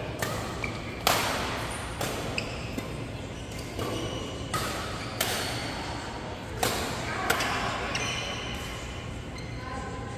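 Badminton rackets striking shuttlecocks, a string of sharp cracks at uneven intervals from this and neighbouring courts, each ringing briefly in a large hall; the hits thin out over the last couple of seconds.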